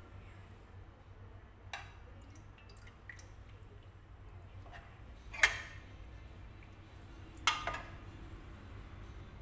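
A serving spoon knocking and scraping against a pan and a ceramic bowl while coconut-milk curry is spooned out, with sauce dripping. There are a few sharp clinks, the loudest about five and a half seconds in and another about two seconds later.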